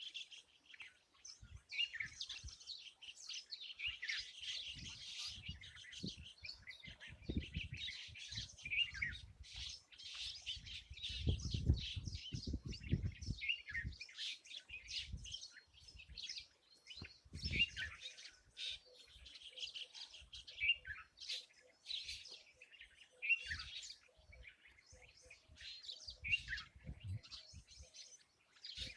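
Many small birds chirping and twittering at once, short overlapping calls without a break. Low rumbles come and go underneath, strongest about halfway through.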